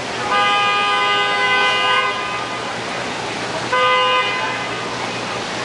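Vehicle horn honking: one long steady blast of nearly two seconds, then a short toot about two seconds later, over steady background noise.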